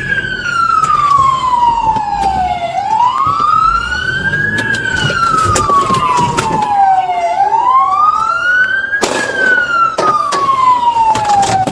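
Police car siren in wail mode, loud, rising and falling slowly about every four and a half seconds, with scattered knocks and clicks over it. It cuts off near the end.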